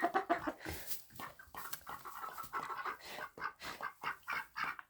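Ducks quacking in a rapid run of short, repeated calls.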